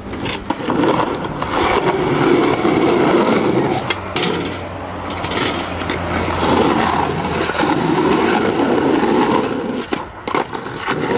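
Skateboard wheels rolling on rough asphalt, with a few sharp clacks of the board popping and landing, two of them about 4 seconds in and two more near the end.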